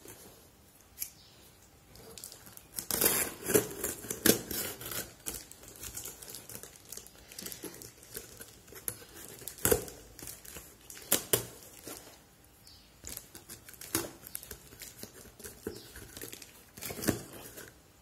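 Packing tape on a cardboard shipping box being slit with a cutter blade and torn back, with scraping, tearing and crinkling in irregular bursts, busiest a few seconds in, and a few sharper single strokes later on.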